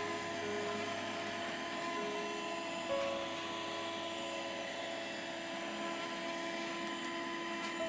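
Xiaomi SDJQR02RR vacuum cleaner's motor running steadily, a continuous whine and hum.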